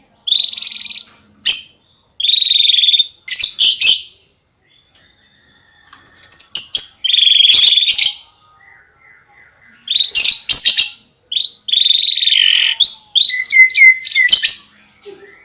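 White-rumped shama singing close to the microphone: loud phrases of a second or two with short pauses between, mixing fast trills and rapid notes. The song is filled with canary phrases.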